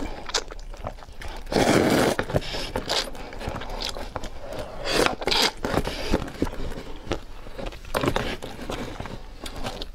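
Close-up noodle eating: a few slurps of noodles, the longest about two seconds in and others near five and eight seconds, with chewing and small clicks in between.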